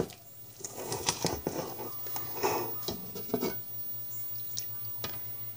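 A wire whisk stirring batter in a large bowl: soft wet squishing with scattered light clicks of the wires against the bowl, over a low steady hum.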